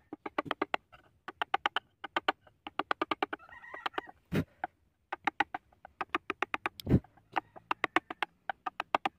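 Hand-held wood-carving chisel cutting into wood in quick short strokes: bursts of sharp clicks at about ten a second, with two louder knocks in the second half.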